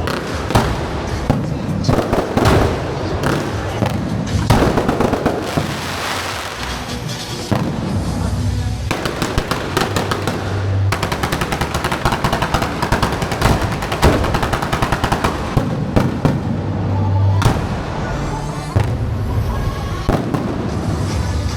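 Fireworks going off in quick succession: a steady stream of crackling and bangs, with a very dense run of rapid crackling about halfway through.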